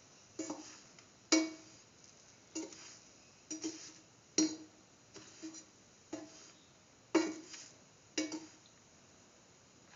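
A utensil clinking and knocking against a metal frying pan: about a dozen short, sharp clinks at uneven intervals, each with a brief ring. The loudest come about a second and a half, four and a half and seven seconds in.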